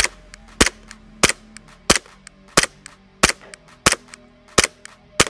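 Umarex Glock 17 Gen 5 gas blowback airsoft pistol firing on green gas: about nine sharp shots in a steady semi-automatic string, roughly one every two-thirds of a second, with fainter clicks between them.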